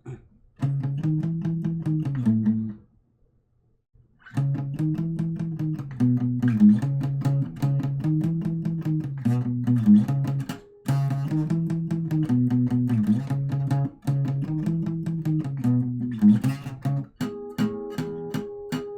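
Guitar playing a low, repeating riff, a phrase of a few notes that comes round about every two and a half seconds. It stops briefly about three seconds in, starts again, and ends on some held notes.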